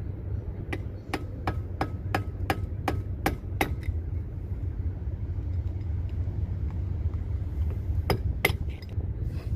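Hammer tapping a screwdriver against the spindle nut on a truck's front axle to tighten it: a quick run of about ten sharp metal-on-metal strikes, then two more strikes near the end.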